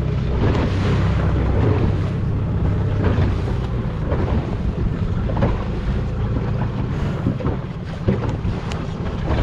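Steady wind buffeting the microphone over water noise on board a boat, with a few faint knocks.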